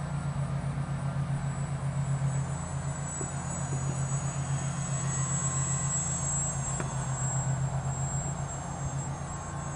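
Electric RC plane flying overhead: the Scorpion 2208 brushless motor turning an APC 9x4.7 propeller gives a steady low drone with a fine regular pulsing.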